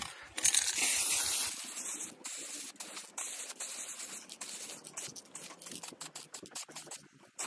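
Aerosol spray paint can spraying: one long hiss about half a second in, then a rapid run of short spurts until near the end.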